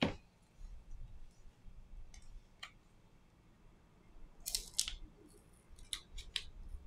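Sharp clicks and light scrapes of small hand tools against a Samsung Galaxy A52s 5G's parts during a screen replacement: one loud click at the start, a few spaced clicks, then a quick cluster of clicks about four and a half to six and a half seconds in.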